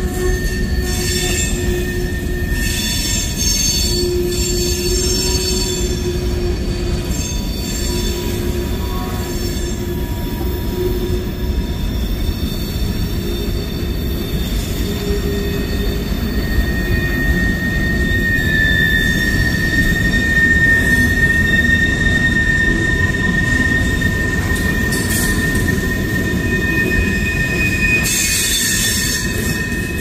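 Freight cars of a mixed freight train rolling past: a steady rumble of steel wheels on rail with a sustained, high-pitched wheel squeal, which grows louder a little past halfway.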